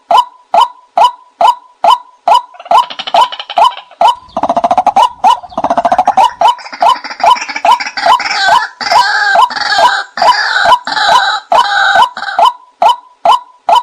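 White-breasted waterhen calls played as a hunter's lure recording: a steady run of short croaking 'kwak' notes, about two and a half a second. From a few seconds in, a dense raucous chorus of overlapping calls joins the repeated notes and carries on until near the end.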